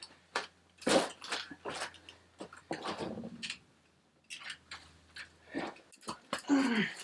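Irregular knocks, scrapes and crunches of a shovel working into cut clay soil, the loudest about a second in.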